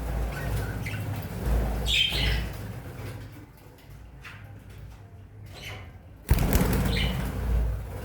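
Aviary birds moving about, with wings flapping and a few short high calls; a sudden louder burst of flapping about six seconds in.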